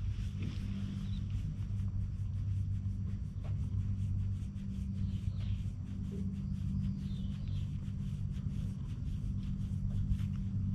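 A cat purring, a steady low rumble, while its chin and cheek are scratched, with a soft rapid rustle of fingers in its fur.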